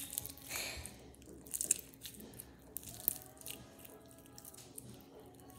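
Slime being squeezed and stretched in the hands, giving scattered small wet clicks and pops, with a short hiss about half a second in.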